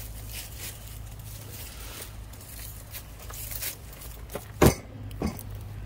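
Rustling and scraping close to the microphone, with a sharp knock a little past four and a half seconds in and a softer one about half a second later, over a steady low hum.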